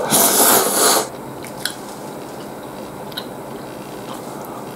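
A loud slurp of Tenkaippin ramen noodles lasting about a second, then chewing with a few small wet clicks.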